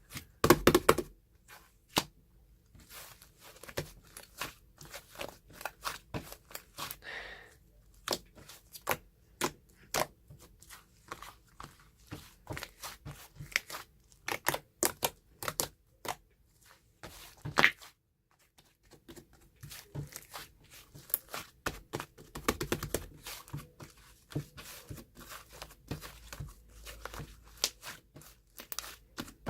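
Close handling sounds: irregular sharp clicks and taps, some crinkling, coming in quick runs with short pauses.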